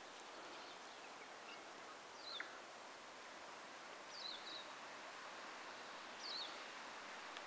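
Faint forest ambience: a steady hiss, with a small bird giving a short, high, falling call three times, about two seconds apart.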